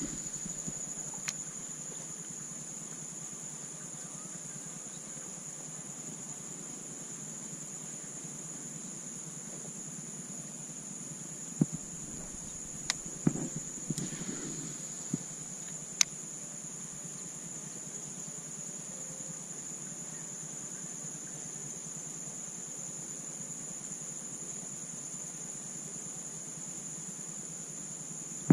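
Steady, high-pitched insect chorus droning without a break. A few sharp clicks and knocks stand out about halfway through.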